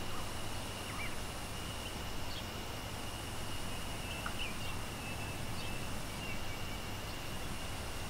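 Waterfall running steadily, a constant even rush of water, with a few short bird chirps scattered through it and a thin steady high tone above.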